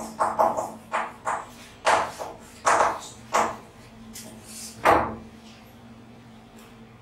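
Chalk writing on a blackboard: a run of short, sharp scratching strokes, the last and loudest about five seconds in, then only a faint steady hum.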